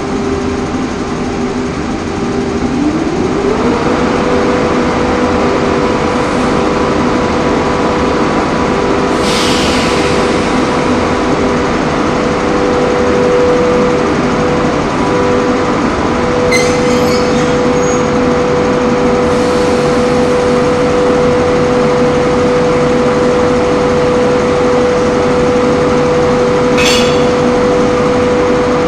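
SS8 electric locomotive's auxiliary machinery starting up: a motor whine rises in pitch over a second or so and then holds steady, over a pulsing lower hum. A few brief hisses and clicks sound about a third of the way in, past the middle and near the end.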